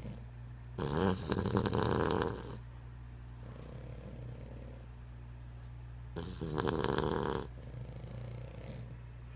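Dog snoring: two long, loud, fluttering snores about five seconds apart, with softer breaths between them.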